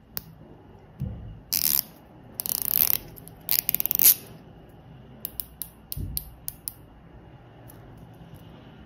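Rotating bezel of a Borealis Neptuno diver's watch turned by hand, clicking over its ratchet: three quick runs of clicks in the first four seconds, then a handful of single clicks.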